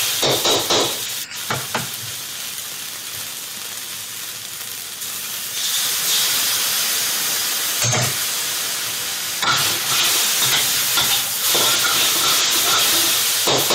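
Rice noodles sizzling in a hot wok over high heat, with a metal wok spatula scraping and knocking against the pan as they are tossed. The sizzle rises about halfway through, as sauce is ladled into the hot wok.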